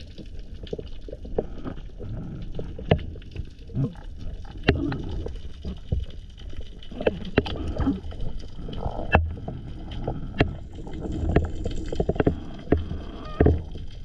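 Underwater sound picked up by a diver's camera: a low rushing of water, with many sharp clicks and snaps scattered irregularly throughout.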